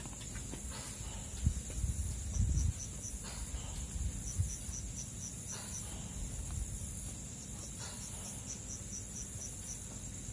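Night insects such as crickets chirping: a steady high-pitched trill with runs of quick, evenly spaced chirps repeating through it. A few low thumps about two seconds in.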